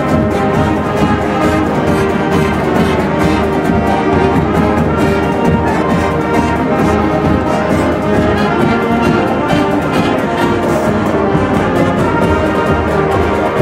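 Orchestral background music with brass instruments and a steady beat.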